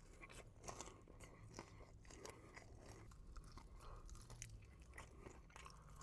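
Faint crunching and chewing of crispy fried food, close to the mouth, with irregular small crunches throughout.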